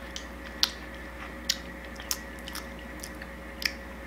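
Mouth sounds of people biting into and chewing juicy grapefruit halves: about five short, wet smacks spread through, over a faint steady hum.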